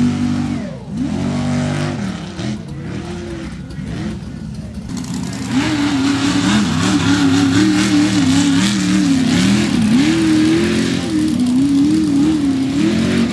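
Mega mud truck engine revving hard and backing off over and over as the truck runs a dirt obstacle course, its pitch rising and falling. The sound cuts abruptly about five seconds in to a louder truck engine, which keeps revving up and down.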